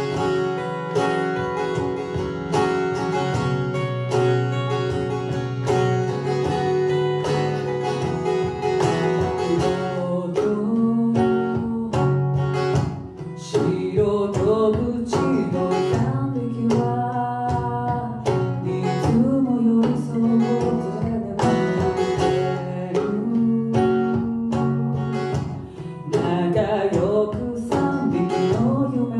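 Acoustic guitar picked in a steady rhythmic pattern, with a woman singing over it from about ten seconds in.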